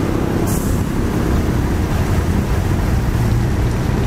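Heavy diesel engine running at a steady low rumble, with a short hiss about half a second in.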